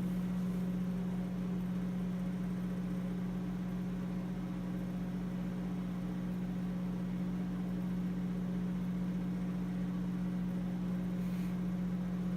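Microwave oven running: a steady, even hum with a strong low tone, unchanging throughout.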